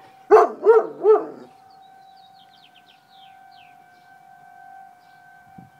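Bernese mountain dog howling loudly in three wavering swells during the first second and a half, over a civil-defense siren holding a steady tone; the siren carries on after the howl stops.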